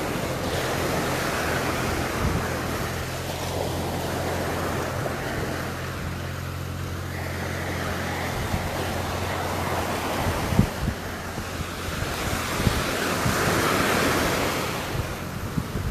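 Ocean surf breaking and washing up a beach, swelling about a second in and again near the end, with wind buffeting the microphone and a few low bumps in the second half.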